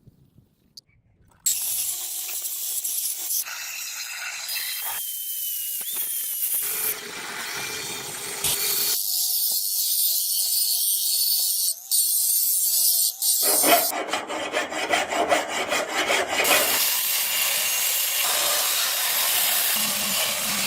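A series of short, cut-together clips of a metal blade being worked with abrasive tools: loud rasping, grinding noise. One clip has a steady hum under it, and another has a fast, even rattle of strokes. It begins after about a second and a half of near silence.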